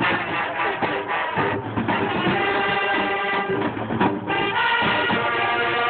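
Music with held notes over a steady beat of percussion strokes.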